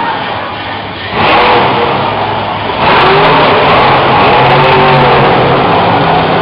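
Monster truck engine revving hard as the truck accelerates across the dirt, stepping up in loudness about a second in and again about three seconds in, then held loud.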